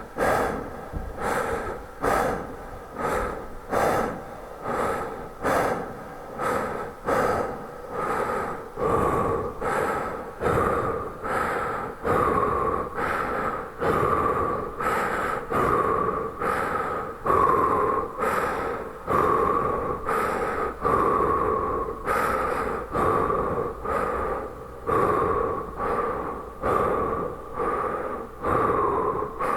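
A man breathing in a quick, even rhythm, a little more than one breath a second, each breath trailing off into a big reverb.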